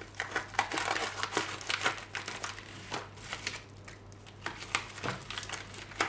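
Plastic courier mailer bag crinkling and crackling as it is handled and cut open with scissors. The crackling eases for a moment about three and a half seconds in, then picks up again.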